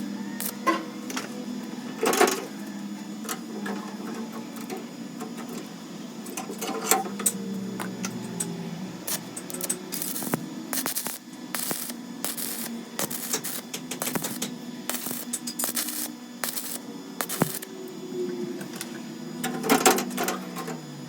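Irregular clicks and knocks of hand-tool work on wood or metal, with a few louder strikes standing out among lighter taps.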